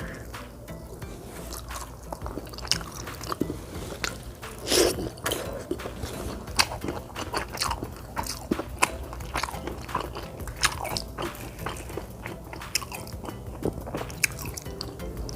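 Close-miked chewing while eating, with many short wet mouth clicks and smacks; a louder smack comes about five seconds in. A steady low hum runs underneath.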